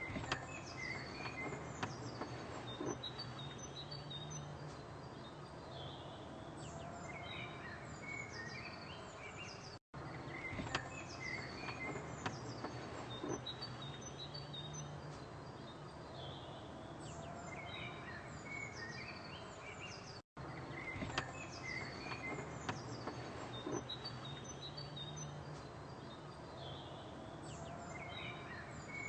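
Short bird chirps and whistles over a steady low hum and background hiss. The same ten-second stretch repeats three times, with a brief dropout each time it restarts.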